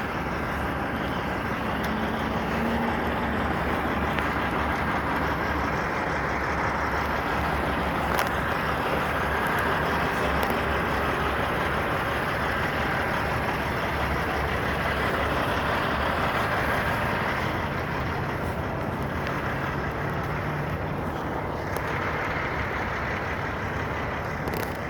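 Steady road traffic noise from passing vehicles, with a faint engine hum from a truck among them. It eases off a little after about seventeen seconds.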